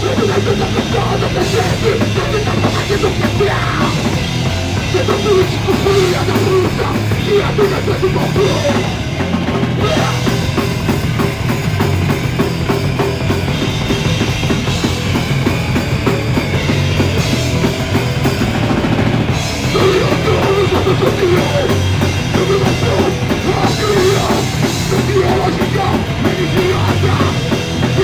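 Live rock band playing loud, heavy punk-style music with a pounding drum kit and amplified instruments, dense and unbroken, recorded on a mobile phone.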